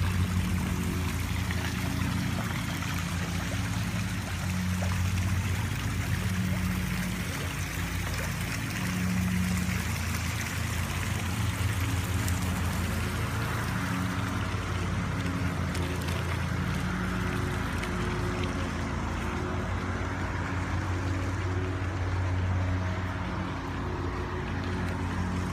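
Pool water features running: deck jets and a bubbler splashing into the pool, a steady trickling and pouring of water. Under it runs a steady low hum.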